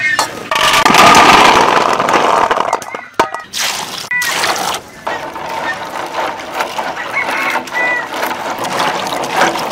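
Jujube fruits tumbling from a basket into a metal basin of water, a loud rushing splash that tails off after about three seconds, followed by hands swishing and rubbing the fruits in the water with irregular splashes and knocks. A few short high chirps come through now and then.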